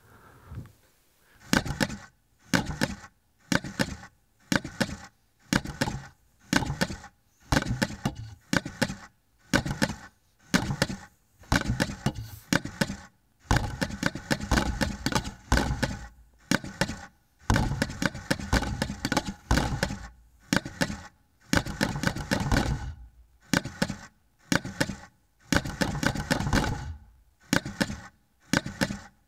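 Robotic wooden box drums of the Modular Rhythm Machine, their sticks driven by small motors, knocking out rhythmic patterns. The bursts of rapid strikes start about a second and a half in and come roughly once a second with short gaps, running together into longer rolls in the middle.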